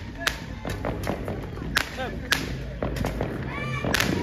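Fireworks and firecrackers going off, a string of sharp bangs at irregular intervals, about one every half second.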